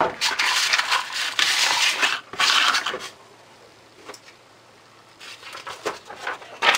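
Sheets of sandpaper rustling and sliding across a cutting mat as they are pushed aside, loud for about three seconds, then softer rustles and a sharp click near the end.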